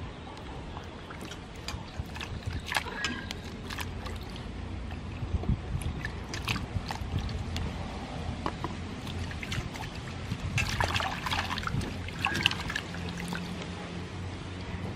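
Vegetables being washed by hand in a stainless-steel bowl of water: irregular sloshing and splashing, with drips as leaves are lifted out and small knocks against the bowl. The splashing comes in bursts, busiest about three seconds in and again around eleven to twelve seconds, over a steady low hum.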